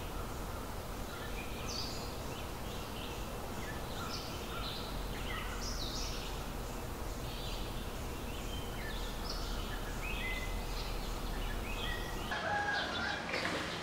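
Birds calling: a steady run of short, scattered chirps and whistles, with farmyard fowl among them.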